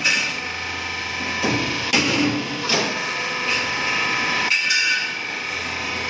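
A string of sharp metallic knocks, one every second or so at uneven intervals, over the steady hum of machinery running. The knocks are metal on metal at a cable tray roll forming line being installed.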